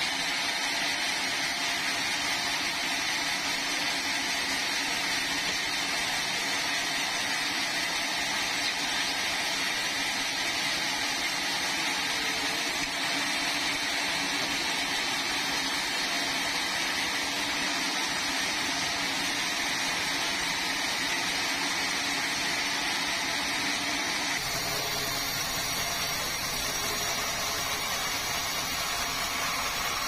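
Log band sawmill running steadily, its blade spinning as a large red meranti log is fed toward it on the rail carriage. The sound changes abruptly near the end.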